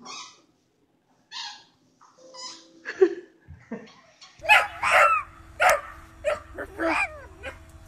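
Dog-like barking: a few short, spaced yips, then a quick run of about seven loud barks with sliding pitch in the second half.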